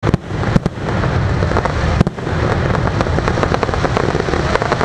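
Fireworks going off: a few sharp bangs, the loudest about two seconds in, over continuous crackling and a low rumble.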